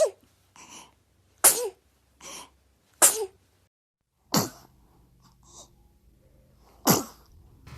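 Babies sneezing: five short, sharp sneezes, the first four about one and a half seconds apart and the last after a longer gap, with small breaths between some of them.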